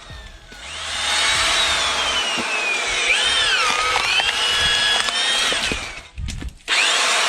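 Drill hammer splitter: an electric drill driving a splitting cone, its motor whine falling and rising in pitch as it works through the wood. It stops about six seconds in and starts again shortly after.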